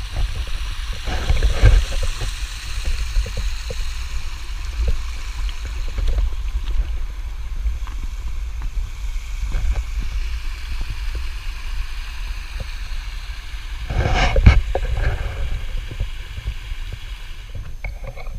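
Rumbling and knocking noise from a GoPro in its waterproof case as the wearer walks, with footsteps on loose shale and stones. A louder burst of scraping noise comes about three-quarters of the way through.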